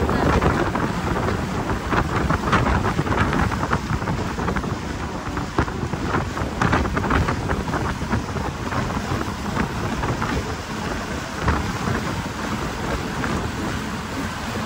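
Wind rushing over the microphone of a motorboat running fast, with water hissing and spattering along the hull as it cuts through the chop. Heavy low rumble with frequent short crackles of spray throughout.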